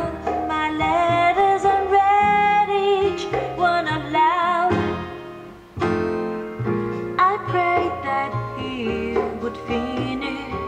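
A recorded song with a singing voice, guitar and keyboard, played back through a DIY Rod Elliott P3A transistor power amplifier driving a full-range loudspeaker, with no preamp. The music dips briefly about halfway through, then carries on.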